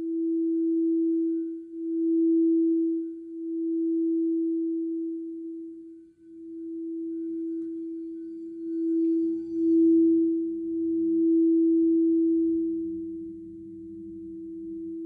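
Crystal singing bowl holding one clear, steady tone, swelling and fading every second or two. It drops out briefly about six seconds in and comes back, with a faint lower hum under it in the second half.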